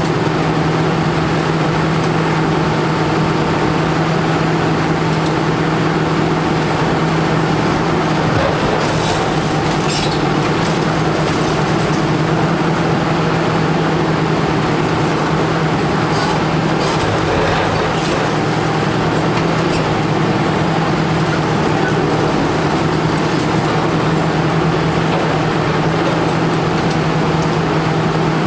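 Kobelco SK400 demolition excavator's diesel engine running steadily under load, with a constant hum, while the demolition jaws work. A few sharp cracks from breaking concrete come about a third of the way in and again just past halfway.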